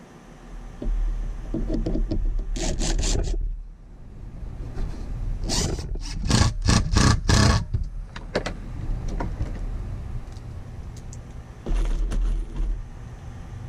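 Cordless driver driving 1¼-inch drywall screws through plywood into a 2x4 corner brace, in three bursts: a long run about a second in, a choppy run of sharp strokes in the middle, and a short burst near the end.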